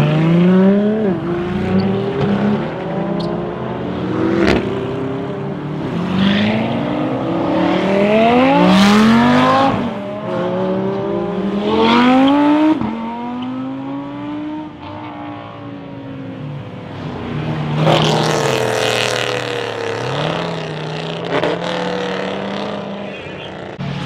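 Supercar engines revving hard as cars accelerate away one after another, each a rising engine note broken off by quick upshifts. The loudest runs come about a third of the way in and again about three-quarters in.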